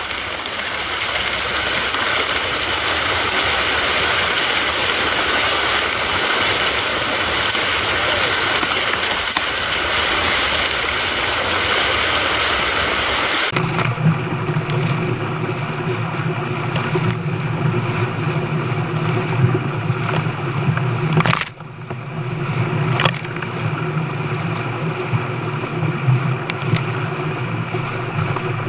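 Rushing water pouring from a fish-stocking truck's tank into the lake, a loud steady gush, for about the first half. It cuts off abruptly and a steady low engine hum takes over for the rest, briefly broken a little after that.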